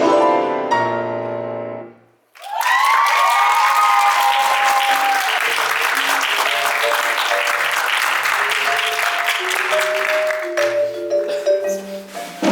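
A musical number's last held chord cuts off about two seconds in. Audience applause and a few cheers break out, with instrumental music playing under them. The applause dies away near the end, leaving the music.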